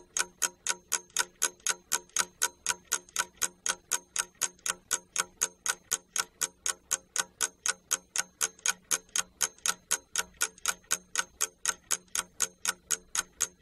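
Ticking-clock sound effect: an even run of crisp ticks at about four a second, counting down the time given to answer a quiz task.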